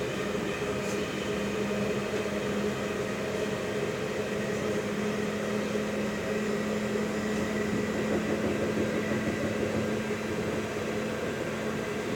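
Steady running noise inside the passenger cabin of a PESA ATR220 diesel multiple unit under way: a constant hum with a steady low drone.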